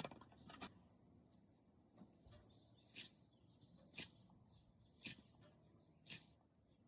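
Near silence, with a faint short squeak or click about once a second from handling a NeeDoh squishy toy.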